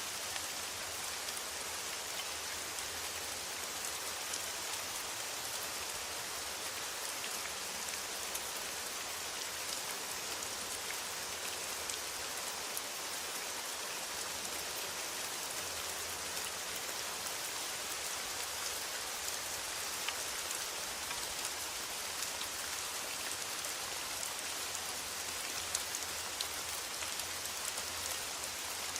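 Steady rain falling on a metal roof: an even, unbroken hiss dotted with many small individual drop taps.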